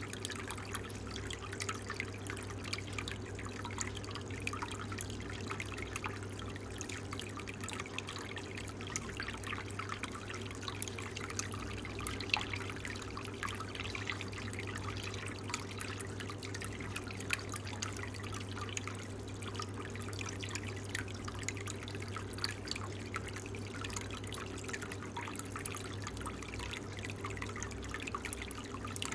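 Water trickling and dripping as an aquarium filter returns water to the tank, a dense, continuous patter of small splashes over a steady low hum.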